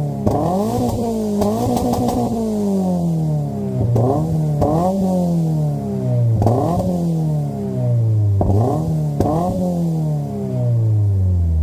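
2022 Subaru BRZ's 2.4-litre naturally aspirated flat-four engine blipped in neutral through an MXP Comp RS catback exhaust: about seven quick throttle blips, several in pairs, each climbing sharply and then falling slowly back toward idle.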